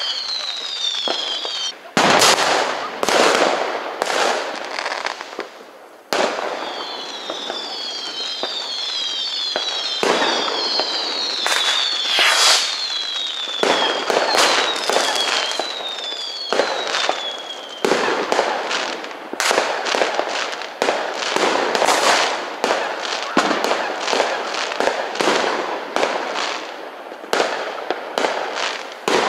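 New Year's Eve fireworks: firecrackers and rockets banging in quick, irregular succession. Through the first half, many high whistles from whistling fireworks overlap, each falling slightly in pitch. In the second half the bangs come thicker and faster.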